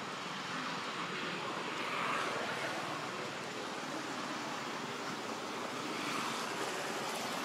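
Steady outdoor background noise: an even rushing hiss with no distinct event.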